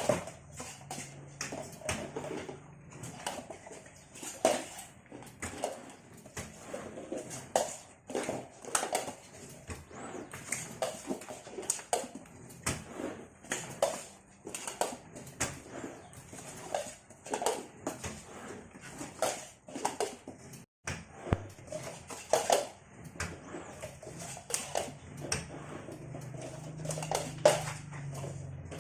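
Manual two-mould cup screen-printing machine being worked by hand: a steady run of irregular clacks and knocks from its levers, moulds and cups, a few a second.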